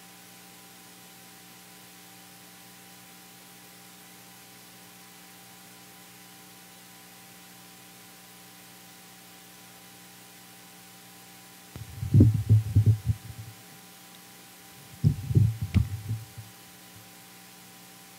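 Handling noise from a microphone on its stand: two short clusters of low, dull thumps and bumps, about twelve and fifteen seconds in, as the mic is handled. Under them runs a steady electrical hum from the sound system.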